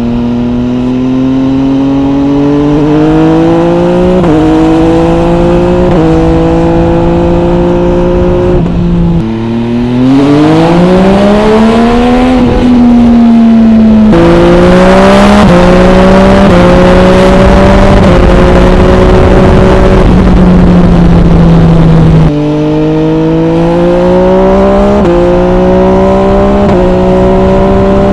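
MV Agusta Brutale 800 RR's three-cylinder engine through its MV Agusta Corse trio exhaust with the dB killer fitted, accelerating through the gears. The pitch climbs and jumps at each gear change, falls away about halfway through and drops again near the end, then pulls up once more.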